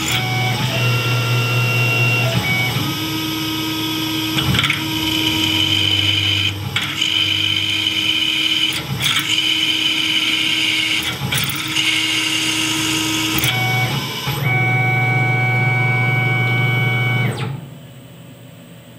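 Tormach PCNC 1100 CNC mill running a drilling program: a steady machine whine whose tones shift every couple of seconds as the table moves from hole to hole, with a short click at each change. It all stops shortly before the end.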